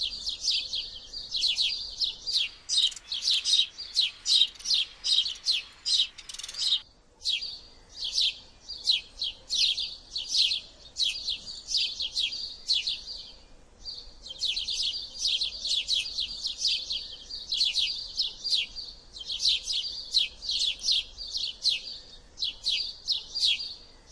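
House sparrows chirping: a steady run of short, high chirps, several a second, with brief pauses about seven and fourteen seconds in.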